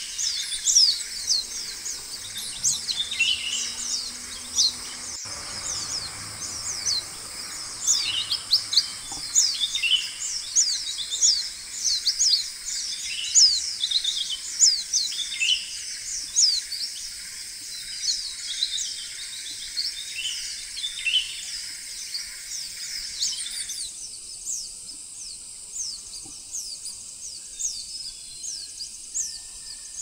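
A flock of Hume's white-eyes calling: many thin, high 'tsee' notes in quick succession, growing sparser and fainter for the last few seconds.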